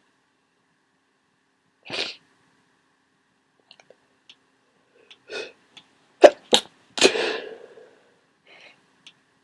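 A person with a head cold sneezing: a few short breaths, then a quick cluster of sneezes about six to seven and a half seconds in, the first one sharp and loudest and the last one drawn out.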